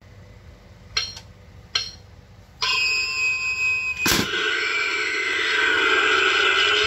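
Tekky Toys Slice of Terror animatronic toaster prop being set off: two clicks, then from about two and a half seconds its built-in speaker plays electronic sound effects with steady tones. Just after four seconds a loud clunk as the skeleton hand pops up out of the toast slot, and the sound effects carry on.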